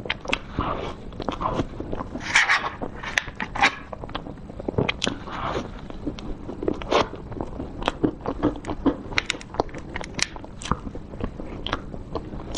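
Close-miked mouth sounds of a person eating whipped-cream cake with chocolate cookie crumbs: chewing and wet lip smacks, heard as many short, irregular clicks.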